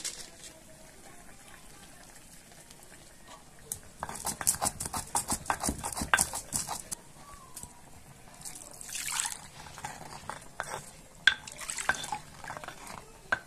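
Stone pestle grinding and knocking in a volcanic-stone molcajete: a quick run of gritty stone-on-stone strikes from about four seconds in to about seven. Near the end water is poured in and the pestle sloshes and taps in it.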